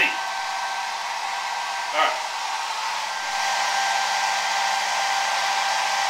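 Small handheld hair dryer running steadily, a rushing airflow hiss with a steady whine, blowing up a ping pong ball that hovers over the nozzle. A short knock comes about two seconds in, and the dryer gets slightly louder about a second later.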